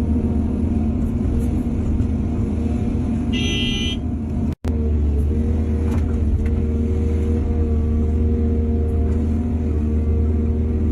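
Heavy-equipment diesel engine running steadily under load, with a short horn-like toot a little over three seconds in. The sound cuts out for an instant about four and a half seconds in, then the engine carries on.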